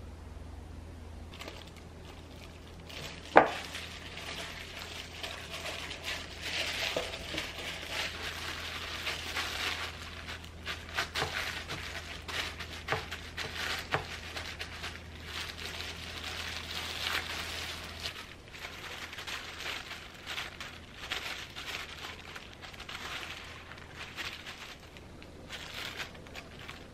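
Thin plastic food-prep gloves and paper towels crinkling and rustling as hands press ground pork to blot the moisture out of it, with many small clicks and one sharp knock about three seconds in. A low steady hum underneath stops about two-thirds of the way through.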